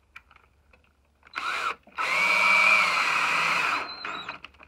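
Cordless drill driving a wood screw with a Robertson (square-drive) bit into a pre-drilled wooden board: after a few faint clicks, a short burst about a second in, then a steady run of nearly two seconds that stops near the end.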